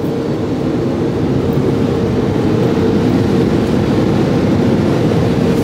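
Automatic car wash machinery running, heard from inside the car: a loud, steady rushing noise with a constant hum.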